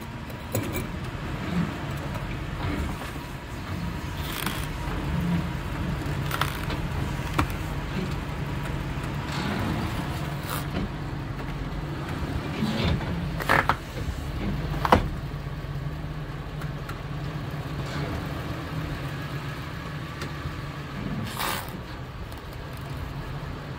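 A new tire being worked by hand and tire iron onto a spoked motorcycle wheel rim, with scattered clicks and knocks, over a steady low hum.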